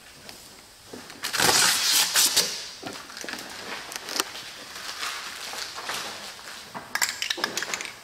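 Vinyl wrap film crackling and crinkling as it is pulled and worked over a car hood's edge, loudest for about a second early on and again near the end, with scattered clicks between.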